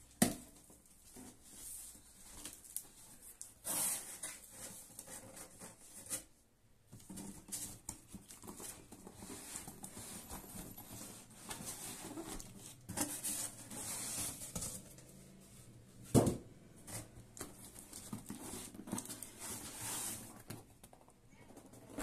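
Corrugated cardboard packaging being handled: irregular scraping, rustling and tapping as box flaps are opened and cardboard inserts are pulled out, with two sharp knocks, one at the very start and one about two-thirds of the way through.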